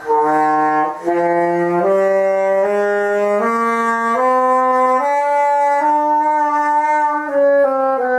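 Alto saxophone played by a beginner: a slow line of held notes, about one a second, climbing mostly upward from low in the horn's range, with a few quicker notes near the end.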